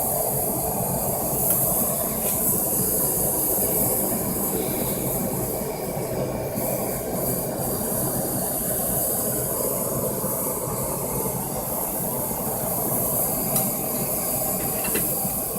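Steady hiss over a low rumble from the heat source melting silver for a pour, unbroken throughout.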